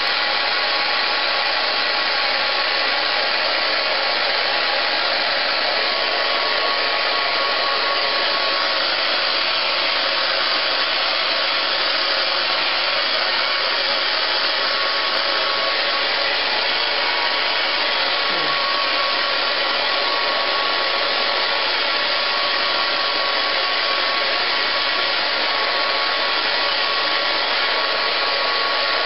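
Handheld hair dryer running steadily as it blow-dries a small dog's coat: a constant rush of air with a faint high whine.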